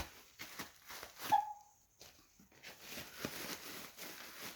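A cardboard shipping box being opened and handled: scattered knocks and taps, a short squeak about a second in, then a stretch of cardboard scraping and rustling.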